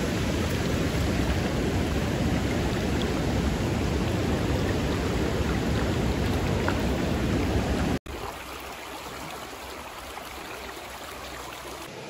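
Creek water rushing steadily. About two-thirds of the way through it breaks off and comes back as a quieter, softer flow.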